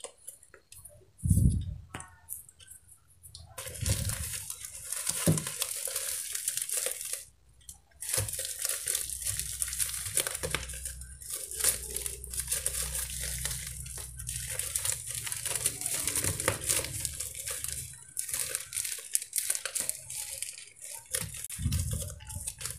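Plastic courier packaging crinkling and tearing as hands peel it open, with a few low handling thumps in the first few seconds.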